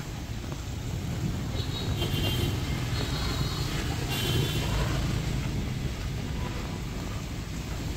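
Motor traffic passing on a rain-soaked street: a vehicle's engine and tyres swell and fade over a few seconds, over a steady hiss of rain, with a few brief high-pitched tones as it goes by.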